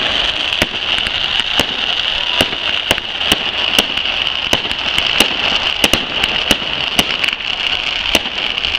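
Fireworks display going off: sharp bangs about once a second over a continuous crackling hiss.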